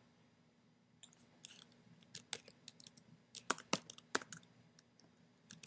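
Computer keyboard typing: an irregular run of soft key clicks starting about a second in and stopping a little before the end, with a couple more clicks near the end.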